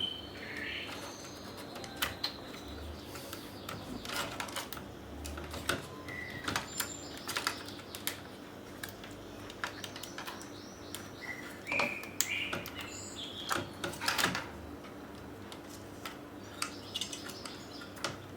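Scattered clicks and taps of a laptop's plastic case and small parts being handled and fitted, with short bird chirps heard now and then.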